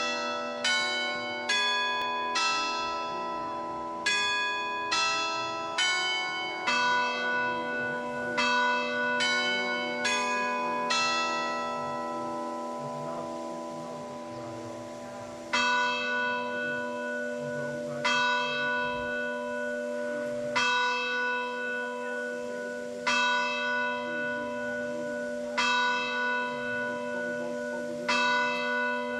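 Church bells ringing: a quick run of strokes for about twelve seconds, then, after a short pause, single slow strokes about every two and a half seconds, each note ringing on under a lingering hum.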